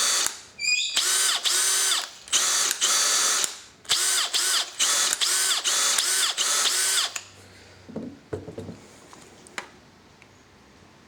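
Makita 18 V cordless hammer drills running unloaded in second (high-speed) gear, the trigger pulled repeatedly: three runs of about a second each, then a quick string of short pulls, each spinning up and winding down. A few light handling clicks follow near the end.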